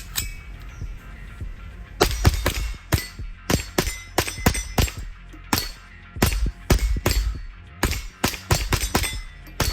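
Rapid semi-automatic fire from a JP-15 .22 LR rifle, about three sharp cracks a second starting about two seconds in, mixed with steel targets clanging as they are hit. Background music runs underneath.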